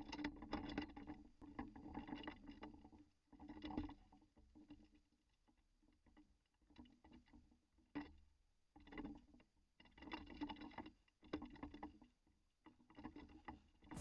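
Faint jet ski engine running, heard through the mounted camera's own microphone, coming and going with short near-silent gaps and a steady low hum underneath.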